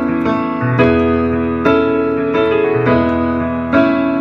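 Piano playing a song's four-bar intro: chords struck in a steady beat, about one a second, over a held bass line.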